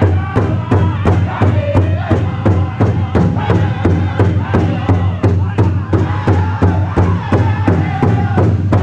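Powwow drum group singing a jingle dress song. Several singers strike one large shared hand drum in unison in a fast, steady beat while singing high-pitched, falling phrases together.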